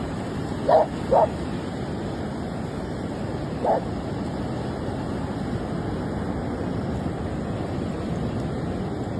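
A dog giving three short barks, two close together about a second in and one more near four seconds, over a steady rushing noise.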